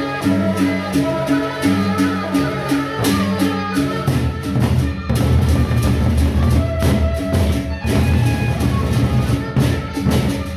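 Gendang beleq ensemble playing: large double-headed barrel drums with clashing cymbals. A steady repeating pitched figure carries the first few seconds, then about four seconds in the big drums come in densely and loud, with sharp cymbal strikes throughout.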